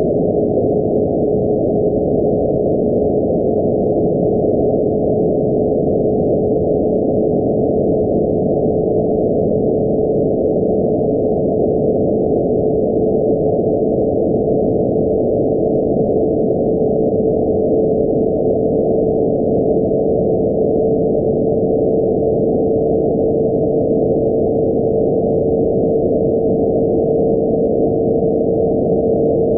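Radio receiver audio: the IMAGE satellite's S-band carrier heard as a steady whistle-like tone in receiver hiss, its pitch creeping slowly upward with the Doppler shift of the passing satellite.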